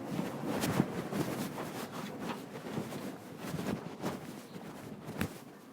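Irregular light knocks and rustling, as of objects being handled and moved, with a sharper knock about five seconds in.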